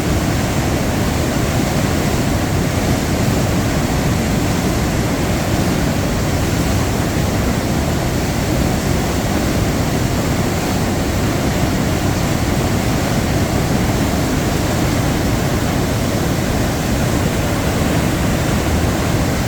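Water rushing steadily over Numa Falls: a loud, even, unbroken roar of falling water, heaviest in the low end.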